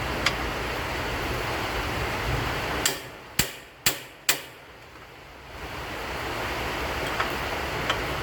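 Four sharp knocks about half a second apart, over a steady background noise with a low hum.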